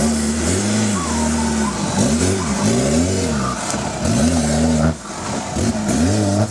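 Off-road buggy's engine revving up and down in repeated throttle surges as it climbs a steep dirt bank under load, with a brief drop in revs about five seconds in.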